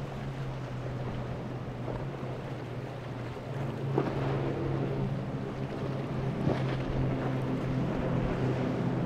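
Boat engines running with a steady low hum, mixed with water noise and wind on the microphone. It grows a little louder about three and a half seconds in, and two short sharp knocks come through, about four and six and a half seconds in.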